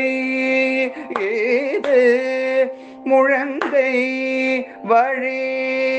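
Male voice singing a Carnatic devotional song in raga Poorvikalyani, holding long notes that bend in pitch with gamaka ornaments, with short breaks between phrases.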